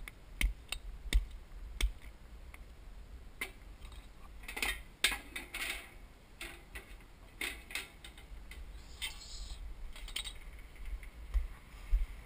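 Scattered clicks and knocks with bouts of scraping and rustling as the metal parts of an electric smoker and oak sticks are handled, with low thumps near the end.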